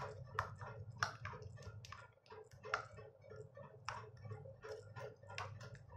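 A metal utensil beating raw egg mixture in a ceramic bowl: faint, quick clinks against the bowl, about three a second and a little uneven.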